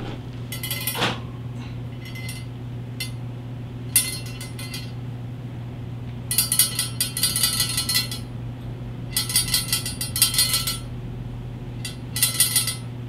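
A couple of metal nuts tied to a pull line rattling and clinking inside a motorcycle handlebar tube as the bar is shaken to work them through its bends, in about five separate bursts.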